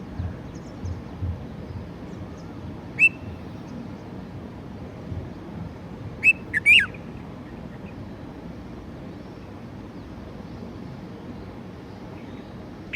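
Red-vented bulbuls calling: short, sharp falling notes, one about three seconds in and then three in quick succession a few seconds later.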